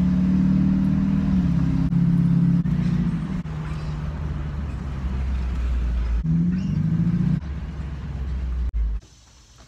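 Truck engine and road noise heard inside the cab while driving: a steady low rumble with the engine note dropping and climbing a few times as it changes speed, rising once more a little past the middle. It cuts off abruptly near the end.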